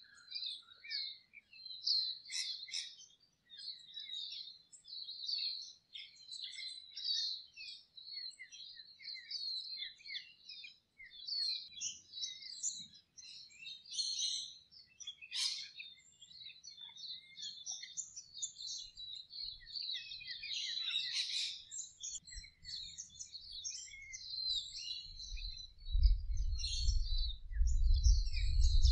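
A chorus of small birds chirping and twittering continuously, many short overlapping calls. Near the end a low rumble comes in underneath and grows louder than the birds.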